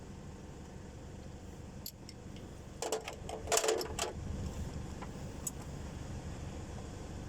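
A quick cluster of metallic clinks and rattles, like hand tools or small metal parts being handled, about three seconds in, over a steady low hum.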